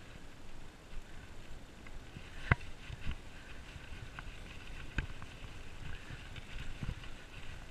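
Bicycle riding over a rough gravel and dirt track: tyre rumble and wind buffeting the microphone, with sharp knocks as the bike jolts over bumps, the two loudest a couple of seconds apart.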